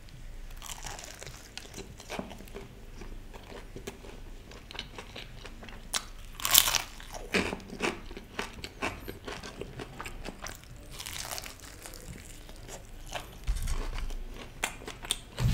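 Close-miked biting and chewing of a KFC Hot & Crispy fried chicken drumstick, the crisp breaded coating crackling and crunching between the teeth. The loudest crunches come about six to seven seconds in.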